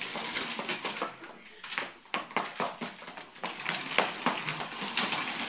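Stage furniture being moved: footsteps and irregular knocks and clunks of chairs being shifted and set down on a wooden stage, over a low murmur of voices.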